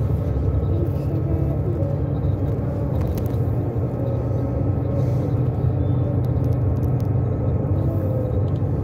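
Steady low rumble of a road vehicle driving along, engine and road noise heard from inside the moving vehicle.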